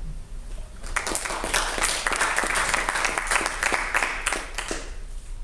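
Audience applauding at the end of a talk. The clapping starts about a second in and dies away just before the end.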